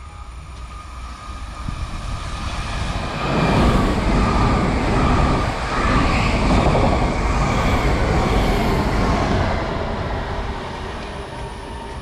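PKP Intercity Pendolino (ED250) electric train passing through the station at speed without stopping: a rush of wheels and air that builds, stays loud for several seconds as it runs by, then fades away. A few steady tones ride on top of it.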